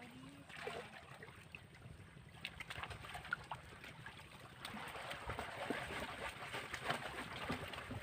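Shallow stream water trickling and splashing, with scattered small splashes and knocks that get busier about halfway through.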